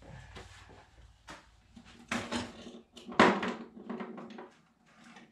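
Knocks and clatter of tools and objects being picked up and moved around, with two louder clanks about two and three seconds in that ring briefly.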